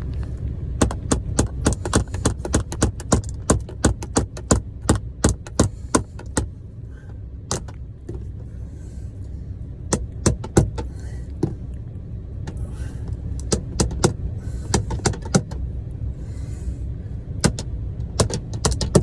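Hammer driving the nails of a tackless carpet strip into a van floor: quick runs of sharp blows, about three a second, with short pauses between runs.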